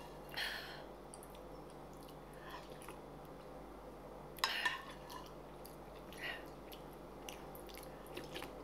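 Soup spoon clinking and scraping against a metal skillet while noodle soup is scooped, with a few short sharp clicks, the loudest about four and a half seconds in. Soft chewing and eating sounds, with a sip from the spoon near the end.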